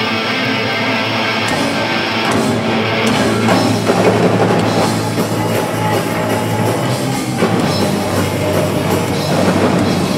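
Live punk rock band playing loud through amplifiers: distorted electric guitars, bass and drum kit in the instrumental opening of a song. A held guitar sound comes first, with the drums and full band coming in within the first few seconds.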